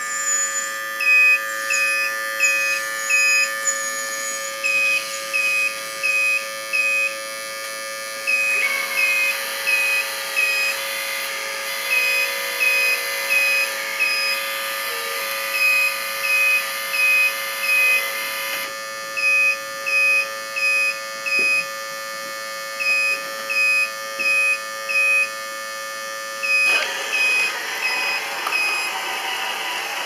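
Electronic back-up alarm on a radio-controlled model construction machine, beeping over and over at a steady pace, over a steady electronic hum.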